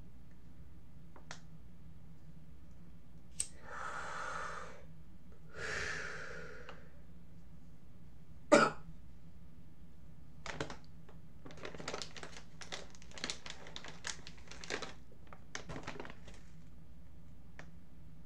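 Two long breaths out, about two seconds apart, then one sharp loud click, followed by a run of small clicks and rustles as a small object is handled in the fingers. A steady low hum runs underneath.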